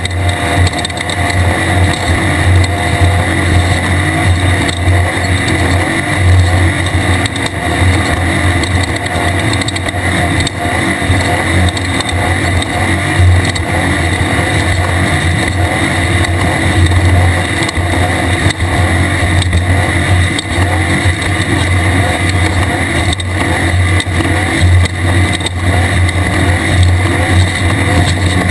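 A Class 1/2-1600 desert race car's 1600 cc air-cooled VW flat-four running hard at racing speed, a steady engine note under an even haze of road and wind noise.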